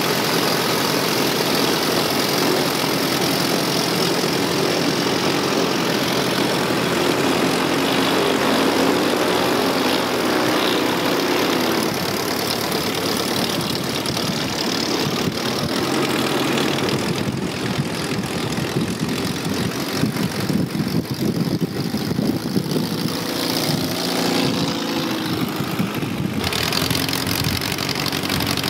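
Single-engine Sonex light aircraft's piston engine and propeller running at low power while taxiing, a steady drone that turns rougher and choppier in the second half.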